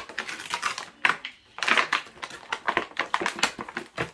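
Clear plastic toy packaging crinkling and crackling as it is handled, in quick irregular snaps with a short pause a little over a second in.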